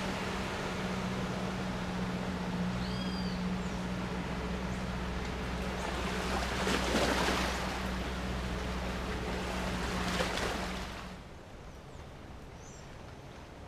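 Motorboat's outboard engine passing on the river, a steady hum with a rush of water that is loudest about halfway through and drops away a little before the end. A couple of short bird chirps over it.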